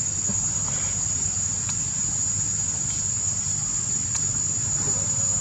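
Insects droning in one steady high-pitched tone, over a constant low rumble.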